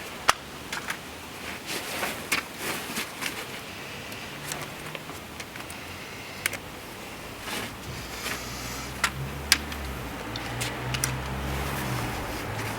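Scattered clicks and taps of a G gauge track section being handled and fitted into place. A low rumble comes in about eight seconds in.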